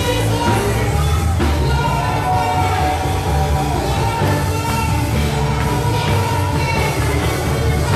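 Gospel music with a heavy, steady bass line and voices singing over it.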